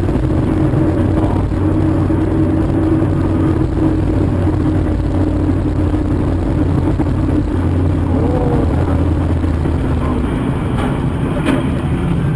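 Car engine and road noise, running steadily. A couple of short, sharp clicks come near the end.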